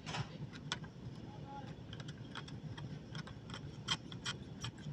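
Irregular light clicks and taps, well over a dozen, from hands handling small plastic and metal parts at a car's fuse and relay box.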